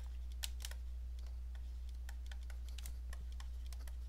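A stylus tapping and clicking on a tablet as words are handwritten: many short, irregular clicks over a steady low electrical hum.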